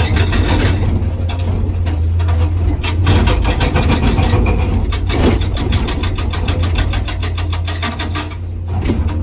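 Hydraulic rock breaker on a Komatsu PC200 excavator hammering hard rock in rapid, evenly spaced blows, several a second, over the steady running of the excavator's diesel engine. The hammering lets up briefly twice, about a second and a half in and again near the end.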